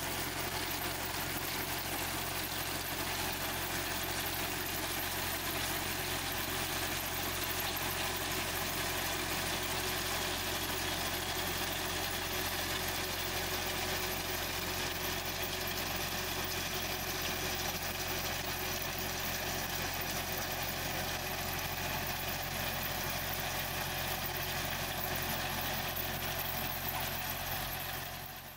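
Farm tractor engine running steadily under load, driving a PTO-powered root digger whose shaker conveyor is lifting ginseng roots out of the soil. The sound fades away near the end.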